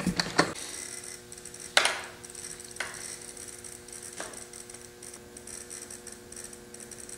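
A few light clicks and taps as a chrome roll bar is handled and set against the plastic bed of an RC pickup truck body, the loudest about two seconds in. A steady faint hum runs underneath.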